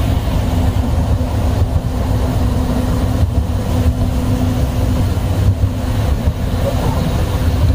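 Toy train running, heard from on board: a steady, continuous low rumble with a steady hum.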